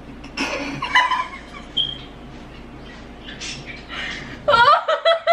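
A woman's short squeal-like outburst about half a second in, then, near the end, a burst of rapid high-pitched laughter in quick repeated pulses, as she reacts to a spoonful of flour in the mouth.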